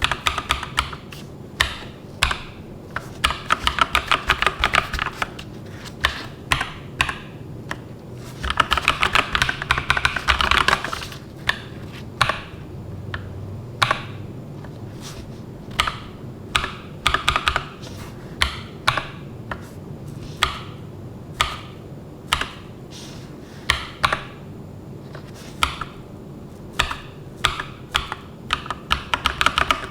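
Keys clacking on an AKKO 3098B mechanical keyboard: scattered single keystrokes broken by two spells of fast, continuous typing.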